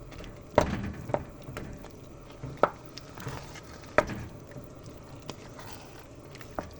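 Thick curry being stirred in a pot, with soft wet squishing and a few sharp knocks of the utensil against the pot.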